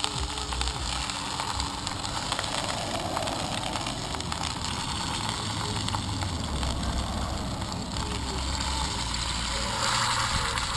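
Pork roast sizzling as it sears in hot oil in a cast-iron Dutch oven, a steady hiss over an uneven low rumble. The sizzle gets louder near the end as the roast is turned onto another side.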